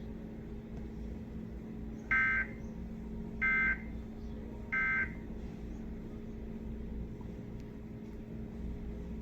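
Emergency Alert System end-of-message signal: three short bursts of SAME digital data tones, about 1.3 seconds apart, starting about two seconds in, closing the required monthly test. Heard through a TV speaker over a steady low hum.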